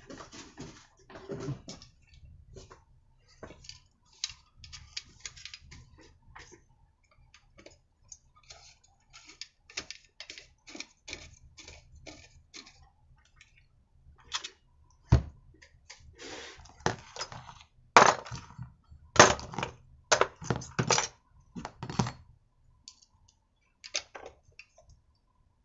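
Scattered metal clicks, taps and a few sharper knocks of parts and tools being handled as a muffler is fitted to a small petrol brushcutter engine. The loudest knocks come in a cluster late in the stretch.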